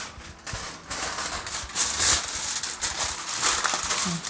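Aluminium kitchen foil crinkling and rustling as sheets are handled and folded by hand into wrappers for moin-moin, an irregular crackle that grows louder about two seconds in.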